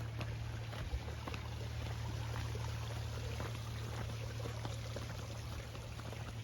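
Water running and pouring with a constant patter of small splashes, over a steady low hum.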